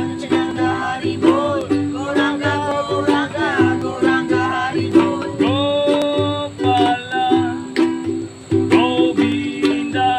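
Kirtan music: a mantra melody sung with gliding pitch over a steady rhythm strummed on a string instrument.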